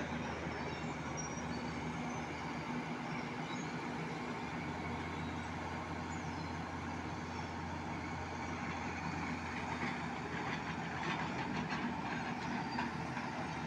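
Diesel engines of heavy mobile cranes running steadily while lifting concrete bridge girders, with some light rattling near the end.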